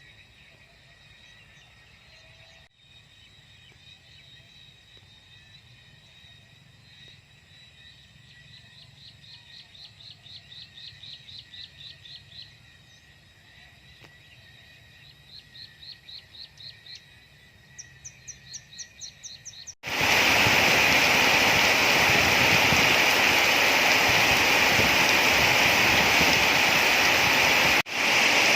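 Quiet countryside ambience with trains of rapid, high chirping calls from a calling animal, growing louder. Then, about two-thirds of the way in, a loud steady hiss of heavy rain cuts in suddenly and dominates, with a brief drop-out near the end.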